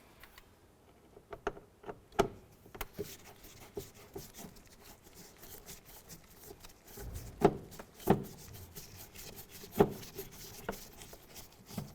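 Handling noises from a Phillips screwdriver and the plastic door trim as the door pull's screws are removed: scattered light clicks and knocks, with three louder knocks in the second half.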